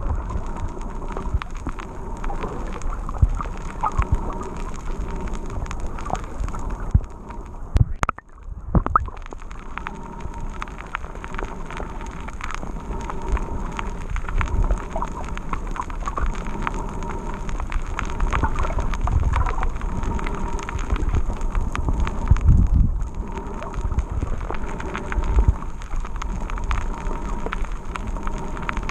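Underwater sound picked up through a GoPro's waterproof housing: a constant crackle of sharp clicks over low, muffled thumps and rumbles of moving water. It drops out briefly about eight seconds in.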